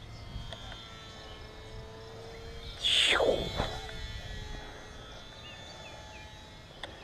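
Faint steady hum of a small electric RC plane, a HobbyZone Sport Cub S, flying at a distance. About three seconds in, a loud cry sweeps steeply down in pitch for under a second, and a few faint bird chirps follow near the end.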